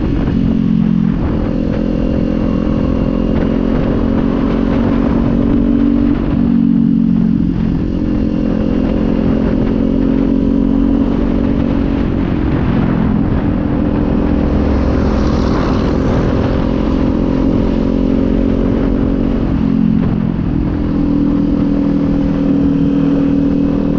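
Kawasaki Z400's 399 cc parallel-twin engine running through a Leo Vince aftermarket exhaust while riding, its note stepping several times as engine speed changes, over steady wind noise.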